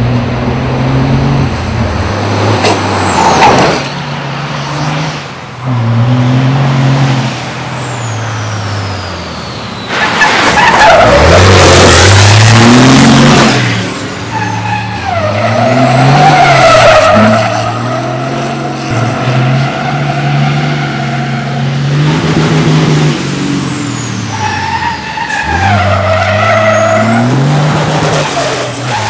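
1100 hp MAN racing semi truck's engine revving hard and dropping back again and again as it is driven in drifts. Tyres squeal and hiss in spells, with the loudest stretch of tyre noise about a third of the way through.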